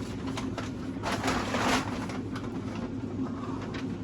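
Groceries being handled and put away: a rustle of packaging about a second in and a few light knocks, over a steady low hum.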